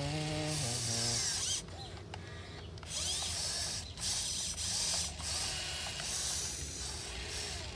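Electric motors and gearboxes of a 1580 RC excavator whirring in bursts as the arm and bucket are worked. There is a whine that steps up in pitch at the start, then stop-start runs of motor noise mixed with the bucket scraping dirt.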